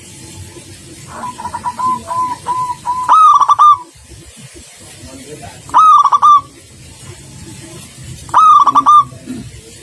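Zebra dove (perkutut) cooing. Three loud, short call phrases come about two and a half seconds apart, with a softer stuttering run of notes before the first.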